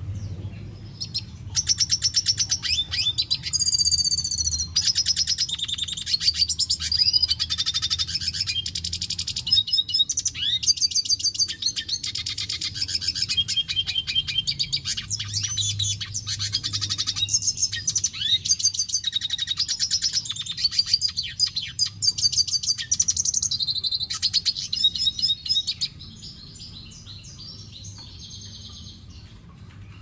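Male red siskin singing a long, fast, high twittering song of trills and buzzy sweeping notes with brief breaks; near the end it drops to softer, quieter notes. A steady low hum runs underneath.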